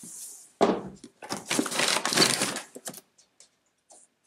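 Packaging and cardboard game boxes being handled, crinkling and rustling, starting with a knock about half a second in and dying away after about three seconds.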